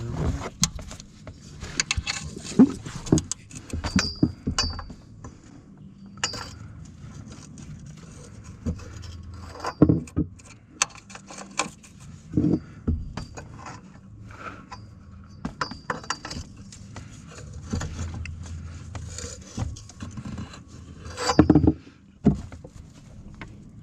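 Metal hand tools clinking, scraping and knocking while a tight oil drain plug on a car's oil pan is being worked loose, with irregular sharp metallic clicks and a few louder knocks.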